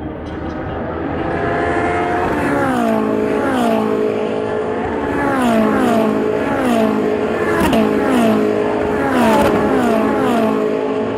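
Ferrari Challenge race cars' V8 engines at high revs, accelerating past with a string of quick upshifts, each heard as a sudden drop in pitch. The sound grows louder over the first couple of seconds as the cars arrive.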